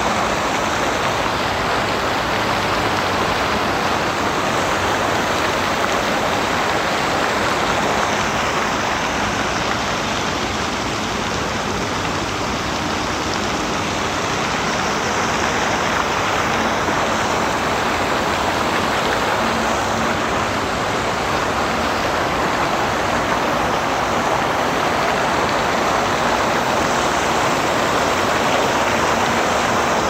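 Lake water fountains and aerator jets splashing: a steady, even rush of falling water.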